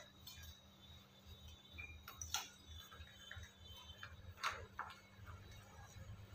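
Faint, scattered clicks and scrapes of a spoon mixing dry fine semolina with salt and soda in a bowl. A few sharper taps come about two seconds in and twice around four and a half seconds, over a low steady hum.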